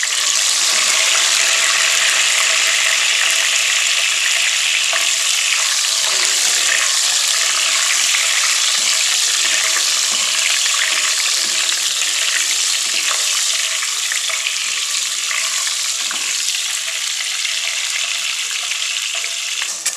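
Whole peeled hard-boiled eggs sizzling steadily in hot oil in a nonstick pan, with a wooden spatula now and then scraping as it turns them.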